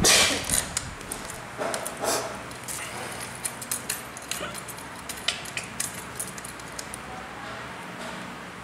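Light metallic clicks and taps of a small hex key and bolt being handled against a brush cutter's aluminium shaft and clutch housing during assembly, with a sharper knock right at the start.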